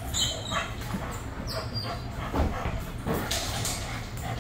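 Excited dog whining and barking, with several sharp rattles and knocks of a wire-mesh kennel in the second half.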